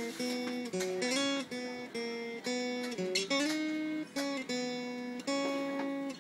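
Cutaway acoustic guitar with a spruce top and mahogany back and sides, played in a slow run of picked and strummed chords, each left to ring before the next.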